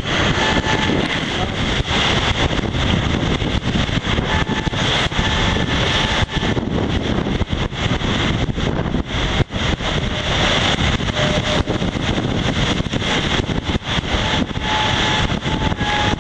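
Strong wind buffeting the microphone over rushing water aboard a Volvo Open 70 racing yacht sailing at high speed, a dense steady noise with faint tones coming and going.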